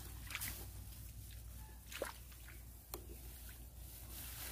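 Small splashes and squelches of water and mud as feet and hands move in a shallow, muddy ditch, with a few sharper splashes about half a second, two and three seconds in, over a steady low rumble.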